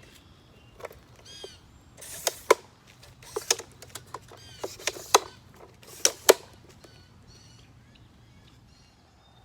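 A run of sharp clicks and taps, several in quick pairs, from things being handled close to the microphone. A small bird chirps a short phrase between them, and faint chirps follow near the end.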